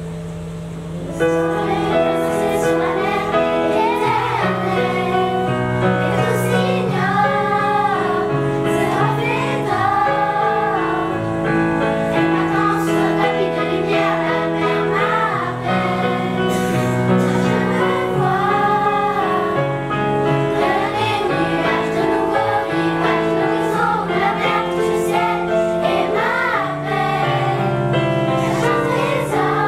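Children's choir singing in unison, accompanied by an electronic keyboard playing held chords; the voices come in about a second in, over the keyboard's opening notes.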